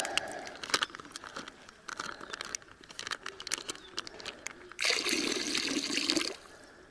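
Water dripping and splashing off a plastic bag held over a river, then a stream of water poured from the bag onto the river surface for about a second and a half, stopping suddenly.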